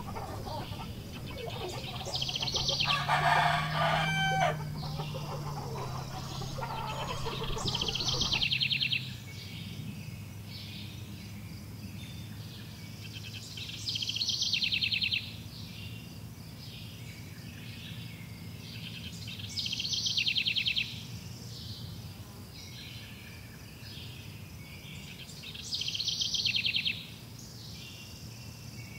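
Chickens clucking, with a drawn-out rooster crow about three seconds in. After about nine seconds the flock falls away, and a short, high, buzzy bird trill repeats about every six seconds, four times in all.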